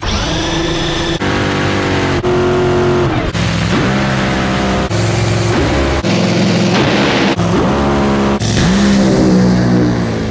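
A series of short, hard-cut clips of a supercharged drag racing engine running and revving, its pitch sweeping up and down several times.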